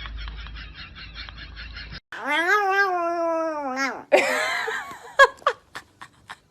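Domestic cat yowling: one long drawn-out call of about two seconds that drops in pitch at the end, then a shorter, rougher cry and a few sharp clicks. Before it, up to a cut about two seconds in, a fast, even pulsing sound.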